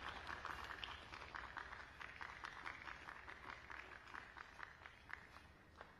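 Scattered hand-clapping from a small audience, a few separate claps a second, thinning out and dying away toward the end.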